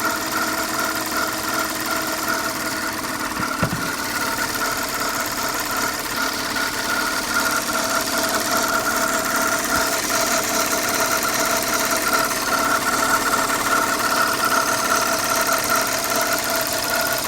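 2005 Audi A6 C6 engine running steadily at constant speed, with a steady high-pitched tone over the running noise: the extraneous engine noise whose cause the owner cannot identify.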